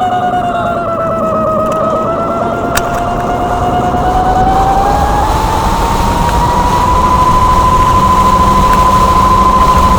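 Synthetic vehicle-alert sound from the EUC World AVAS app, played through a Kingsong 16X electric unicycle's built-in speakers: a single electronic tone that wavers, climbs in pitch about halfway through and then holds steady, over steady rushing noise.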